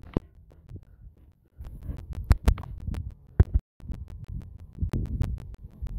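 Wind buffeting the microphone: an uneven low rumble with sharp pops, cutting out to silence for a moment twice.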